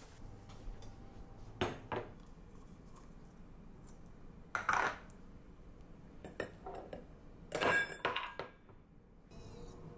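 A few separate knocks and clinks of kitchen handling: a plastic round-ice mold being opened and a ball of ice set into a glass tumbler. The two loudest come about 5 and 8 seconds in, the later one a short ringing clink of glass.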